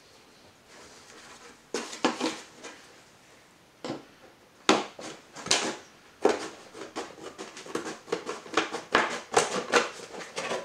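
Scissors snipping through the plastic of a 2-litre milk bottle, a series of short crackly cuts. They start about two seconds in, a few at a time, and come quicker and more steadily from about six seconds in.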